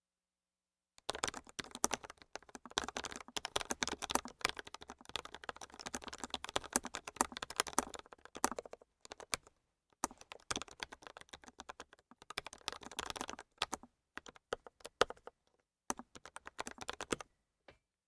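Typing on a modded Keychron K1 SE low-profile mechanical keyboard: fast runs of keystrokes, with a few short pauses, stopping shortly before the end.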